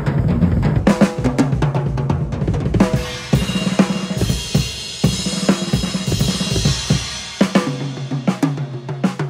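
Sonor SQ2 drum kit (beech toms, maple kick drums) played in a busy run of tom fills with kick and snare hits. A cymbal wash rings through the middle of the passage.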